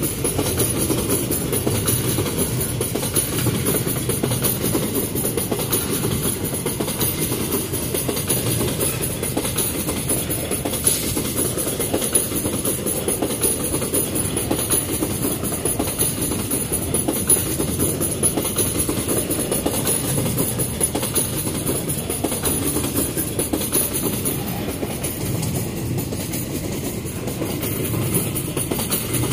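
Empty iron-ore gondola wagons of a freight train rolling past close by: a steady rumble and clatter of steel wheels on the rails that does not let up.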